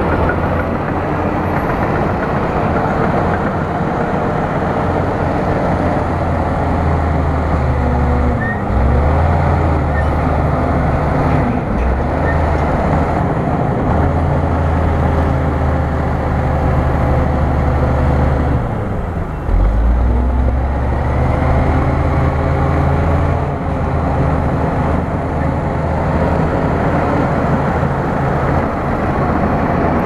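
Bulldozer's diesel engine running steadily at working revs; twice, about nine seconds in and again near nineteen seconds, the engine note drops and then climbs back.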